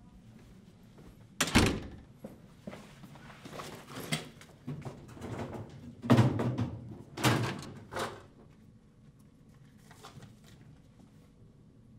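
A door shutting with a thud about a second and a half in, then shuffling, knocks and scrapes of a chair being handled, loudest around six to seven seconds in.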